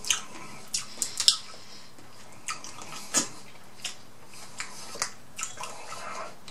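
A person eating crab-leg meat close to the microphone: irregular wet mouth smacks and clicks of chewing, with the loudest cluster about a second in.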